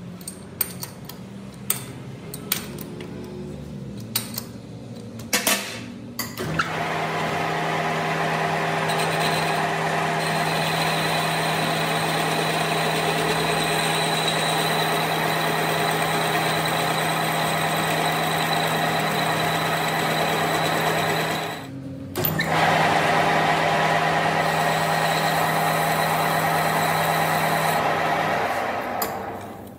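A few sharp metallic clicks and taps, then an electric workshop machine runs at a steady pitch for about fifteen seconds, stops for a moment, and runs again for several seconds before winding down.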